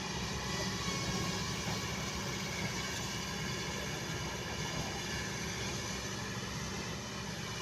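Kobelco hydraulic excavator's diesel engine running steadily, a constant mechanical drone with no sharp knocks or breaks.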